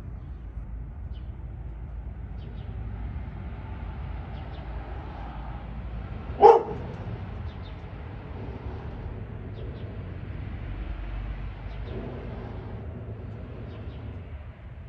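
A dog barks once, a single short bark about six and a half seconds in, over a steady low background rumble.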